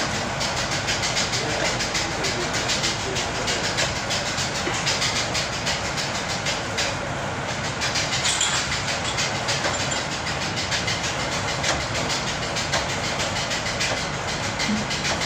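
Steady, loud machine noise: a fast, dense rattle over a continuous hiss, unchanging throughout.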